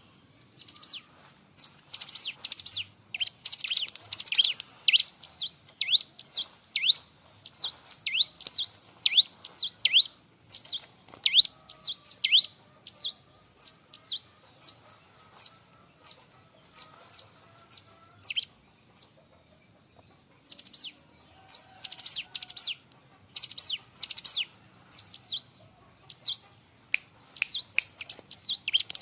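Ciblek (bar-winged prinia) calling on and on, a rapid run of sharp, high notes that slur downward, about two a second. The notes crowd into denser, scratchier chatters near the start and again after a short pause about two-thirds through.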